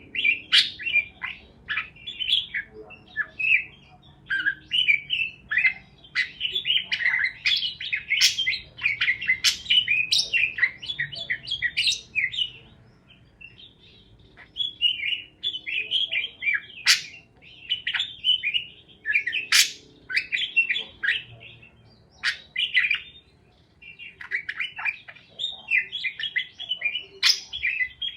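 Parakeets chirping in rapid runs of short high chirps, with a few sharp, piercing notes among them. The chirping drops off briefly about halfway through and again a few seconds before the end.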